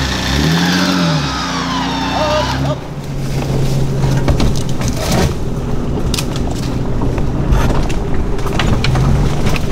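Off-road 4x4 engine revving up and down with a higher whine sliding down in pitch, then, about three seconds in, running steadily under way over a rough jungle track with scattered knocks and rattles from the vehicle.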